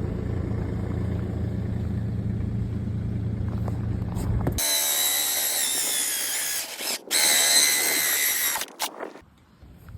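A motor runs with a low, steady hum for about four and a half seconds. Then a high-pitched power-tool whine takes over, running in two spells with a short break about seven seconds in, and stopping about nine seconds in.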